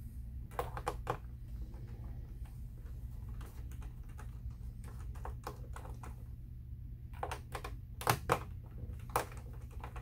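Scattered light clicks and taps of a screwdriver and small screws against the hard plastic back panel of an all-in-one computer as the screws are worked out, with three louder clicks near the end.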